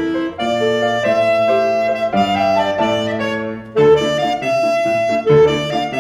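Alto saxophone playing a jazz melody with piano accompaniment. There is a short break a little past halfway, then a loud new phrase.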